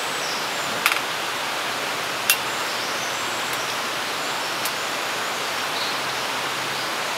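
Steady rushing of a mountain stream, with three brief light clicks spread through it.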